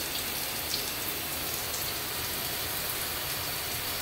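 Shower running: a steady hiss of water spray falling on hibiscus leaves.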